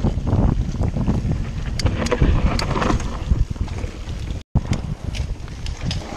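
Mountain bike descending a dirt forest trail at speed: wind buffeting the camera's microphone over the rumble of tyres on dirt and roots, with scattered rattles and clicks from the bike. The sound cuts out for a split second about four and a half seconds in.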